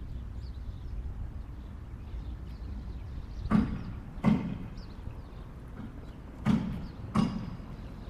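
A steady low rumble with two pairs of sharp knocks, each knock ringing briefly: one pair about three and a half seconds in, the other about six and a half seconds in.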